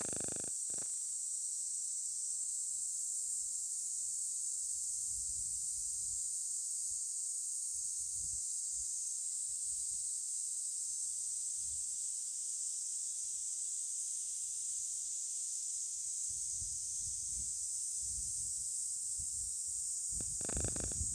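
A steady, high-pitched insect chorus that holds unchanged throughout, with a few soft low rumbles and a brief louder rustle near the end.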